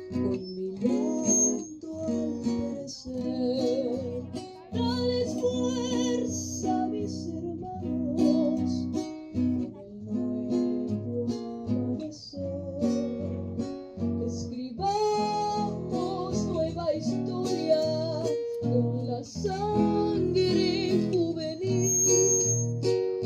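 A boy singing a song into a microphone, with held notes that waver, over a strummed acoustic guitar; both are amplified through a small loudspeaker.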